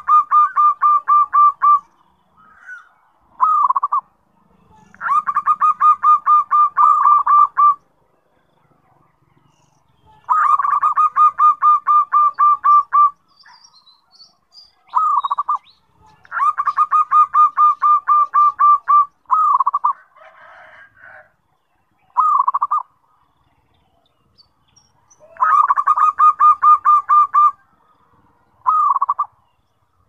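Zebra dove (perkutut) cooing: loud bouts of rapid staccato coos, about five long bouts of two to three seconds each, with short single phrases and pauses in between.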